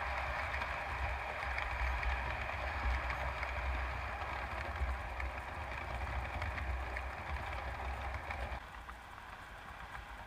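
Steady running noise of model trains on the layout, a whirring rumble over a low hum, which falls away abruptly near the end.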